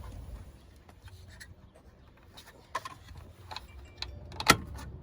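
Scattered light clicks and clinks of hand-handled metal and plastic parts as a radiator hose clamp is refitted, with one sharper click near the end, over a steady low hum.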